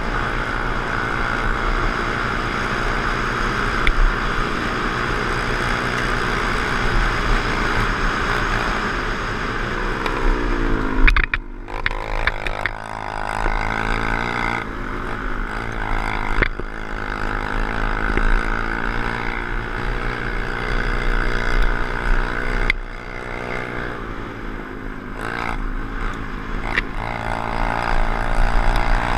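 Honda CT110 postie bike's small single-cylinder four-stroke engine running under load on a dirt track, its pitch rising and falling with the throttle. The note glides down and drops away sharply about eleven seconds in, then picks up again. Wind noise and tyre-on-gravel rumble are heard from the helmet-mounted camera.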